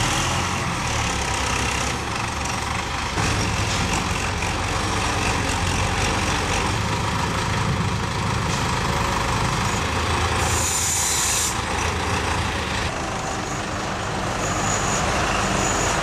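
Diesel engines of a wheeled tractor backhoe loader and a heavy dump truck running steadily while the loader lifts soil into the truck. There is a brief high hiss about ten and a half seconds in.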